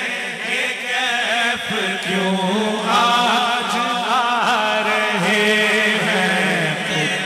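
A man singing a naat, Urdu devotional poetry, in long ornamented phrases whose pitch bends and glides, over a steady low tone.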